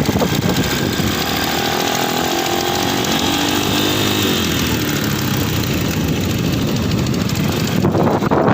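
ATV engine running with its pitch drifting up and down as the throttle changes.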